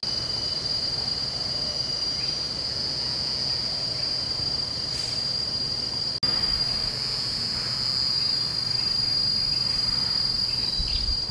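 Insects droning with one steady high-pitched tone, over a low rumble; the sound drops out for a moment about six seconds in.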